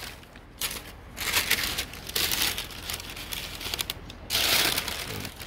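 Tissue paper lining a sneaker box rustling and crinkling as it is handled, in several short bursts.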